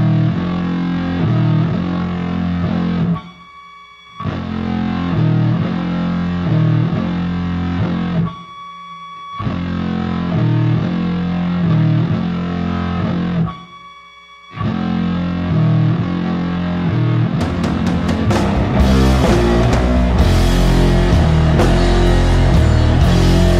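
Rock music backing track: a distorted electric guitar riff that stops briefly three times, then the full band with drums comes in about three quarters of the way through.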